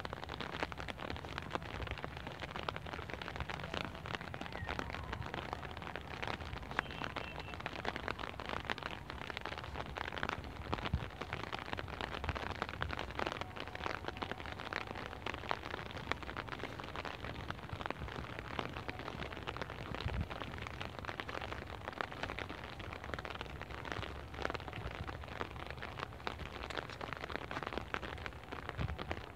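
Steady outdoor noise on a phone microphone with a fine, even crackle throughout and no single clear source.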